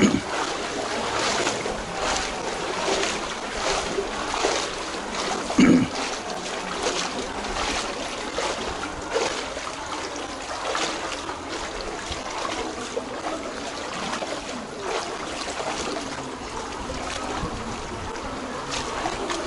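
Footsteps wading through shin-deep floodwater, each stride splashing and sloshing in a steady walking rhythm. One brief, louder low sound comes about six seconds in.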